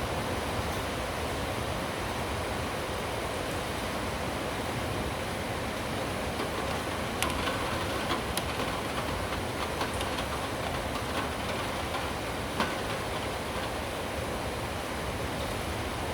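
Steady heavy rain, an even hiss, with a few sharp ticks about halfway through and one more near the end.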